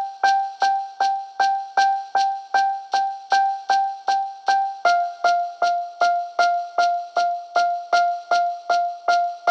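Background music: one note struck over and over in a steady pulse, about three times a second, stepping down slightly in pitch about five seconds in.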